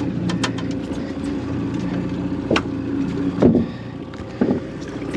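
Boat motor running steadily, with a few sharp knocks from a freshly caught coho salmon being bonked and thrashing on deck, the loudest about three and a half seconds in.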